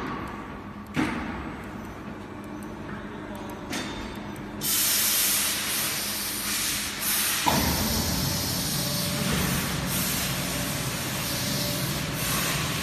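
Pallet exchange table of a fiber laser cutting machine working: a few knocks, then a loud steady hiss starting about four and a half seconds in, joined about three seconds later by a steady low motor rumble as the table drive runs.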